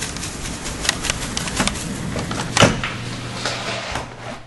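Blizzard wind gusting across the microphone, a rough rushing noise broken by scattered sharp ticks and crackles, with one stronger crack about two and a half seconds in.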